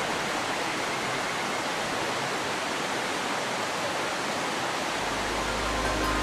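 Steady rushing of a mountain stream, an even hiss of running water. A low steady hum comes in about five seconds in.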